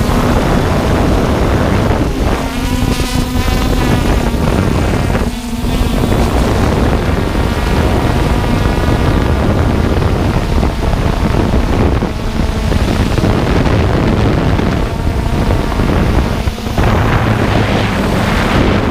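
Wind buffeting the microphone over the steady hum of the Hubsan X4 Pro drone's motors and propellers. A higher tone comes through more clearly at times, about two seconds in and again near the three-quarter mark.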